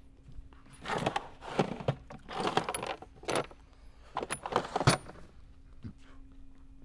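Metal hand tools clinking and clattering in a toolbox while a hammer is dug out, in several bursts of rattling, ending in a sharp metallic clack about five seconds in.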